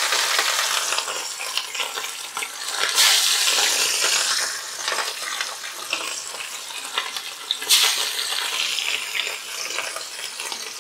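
Fish steaks sizzling and crackling as they shallow-fry in hot oil in a frying pan. The sizzle surges twice, about three seconds in and again near eight seconds, as another steak is laid into the oil each time.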